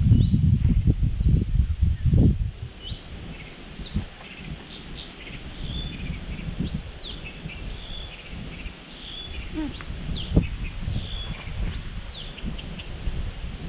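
Several small birds singing and calling: short repeated chirps and quick downward-sliding whistles. A loud low rumble covers the first couple of seconds, then stops.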